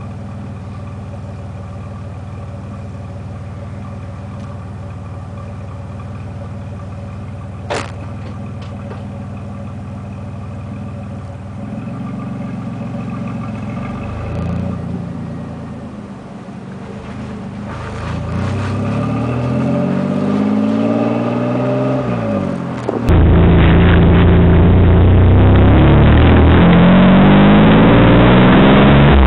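Pontiac Firebird engine running steadily, then pulling away, its pitch rising and falling repeatedly as it accelerates and shifts. About two-thirds of the way through the sound jumps suddenly louder and duller, with the engine still revving up and down.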